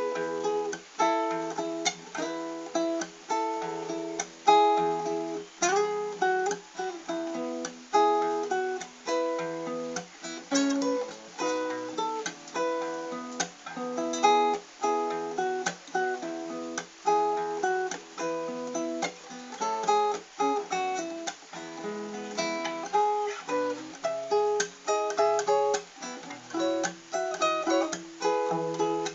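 Solo acoustic guitar played fingerstyle: a picked melody over bass notes and chords, at a steady pace.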